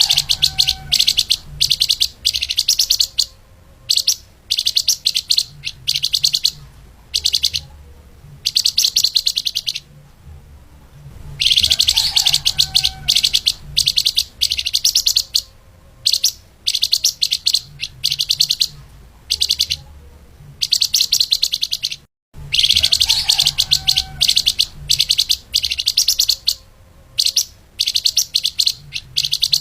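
Flamboyan (lemahan) songbird singing fast, tightly packed runs of high, rapid chirps in long bursts with short pauses, the phrase sequence repeating about every eleven seconds as a looped recording. A faint low hum sits underneath.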